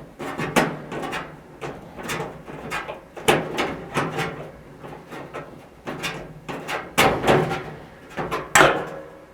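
Screwdriver turning a snug sheet-metal screw out of a dryer's steel cabinet panel: a string of irregular creaks and clicks as the screw and driver grip and turn.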